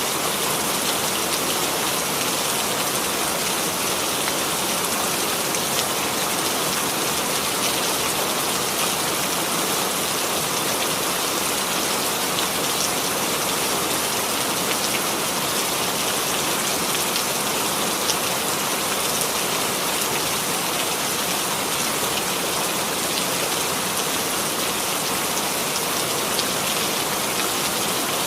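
Steady rain falling, an even hiss of many drops with faint individual drop ticks.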